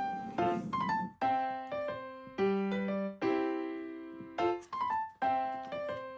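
Background music: an electric-piano tune of struck notes that ring and fade, in a gentle repeating phrase.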